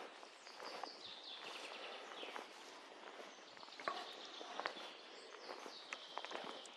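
Footsteps on dry leaf litter and twigs, with sharp clicks and crackles as the walker moves. Small birds sing short high trills, one phrase about a second in and another near the end.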